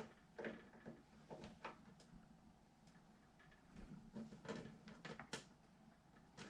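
Faint scattered clicks and taps of computer parts being handled and fitted, about half a dozen light knocks with one sharper click around five seconds in.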